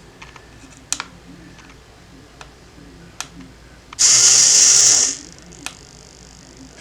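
Small hobby servo in an Arduino-driven door lock whirring for about a second as it moves the lock, triggered wirelessly from a button. A few faint sharp clicks come before and after.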